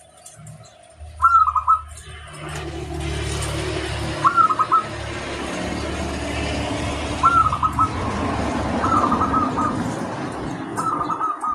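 Zebra dove (perkutut) cooing, about five short repeated phrases of rolling coo notes. Beneath them runs a steady rushing noise with a low rumble.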